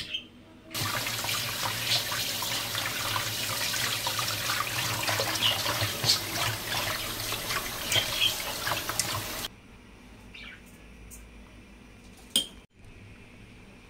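Water running from a tap and splashing, switched on about a second in and cut off suddenly after some nine seconds. A single sharp click near the end.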